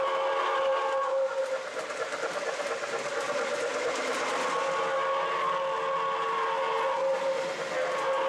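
O gauge model steam locomotive's onboard sound system blowing its steam whistle in long blasts over the steady running noise of the train. One blast is already sounding and ends about a second in, a second runs from about four and a half to seven seconds in, and a third starts near the end.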